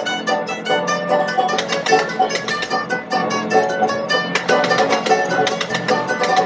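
Background music with quick plucked-string notes, guitar or mandolin-like, playing a busy melody.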